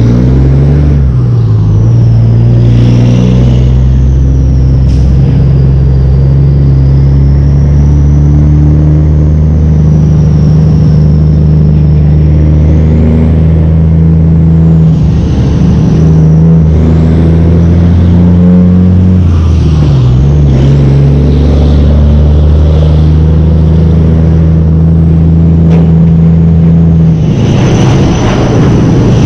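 Heavy truck's diesel engine running while the rig drives through traffic, its pitch dropping and picking up again a few times: about a second in, around the middle, and near the end. A thin high whine wavers up and down over the engine.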